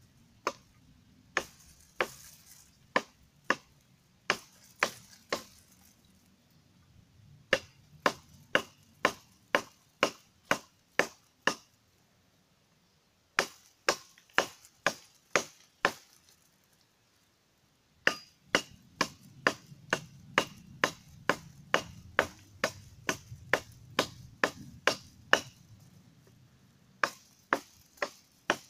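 Thin, fully hardened 1.5 mm steel cleaver of Vietnamese style chopping into a hard, dry branch: sharp blows about two a second, in runs of several strokes with short pauses between them.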